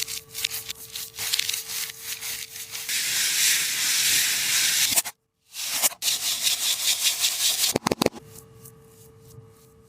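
A tape-wrapped taba squishy being squeezed and handled, its tape and plastic crinkling and crackling with dense little clicks. The sound breaks off for a moment about five seconds in and is softer near the end.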